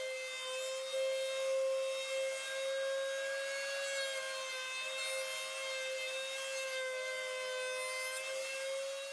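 Table-mounted router running at a steady high-pitched whine while a round-over bit cuts the edge of a plywood piece fed against it, with a rubbing, rasping cutting noise under the whine.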